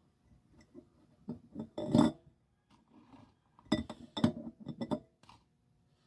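Chicken eggs being set one at a time into a glass jar, clinking against the glass in several short clusters, the loudest about two seconds in.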